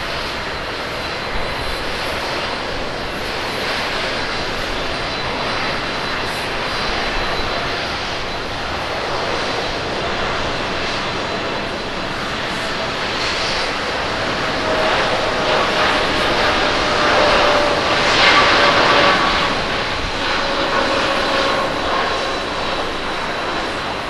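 Boeing 787-8's jet engines at takeoff thrust during the takeoff roll and lift-off: a dense rushing engine noise with a steady whine. It grows louder to a peak about eighteen seconds in as the aircraft passes, the whine dropping slightly in pitch as it fades.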